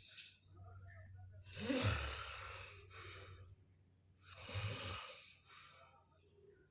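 Loud snoring: two long, noisy snores about three seconds apart, each opening with a low rattle.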